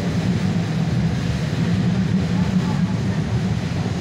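Naples Metro Line 1 train running, heard from inside the car: a steady, low rumble of wheels on rails and running gear.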